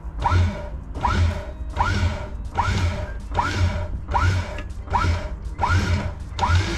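Maxwell 1200 electric capstan winch, converted to self-tailing with a Barton wincher, turning under power and hauling rope. A squeak and a low knock repeat steadily about every 0.8 seconds.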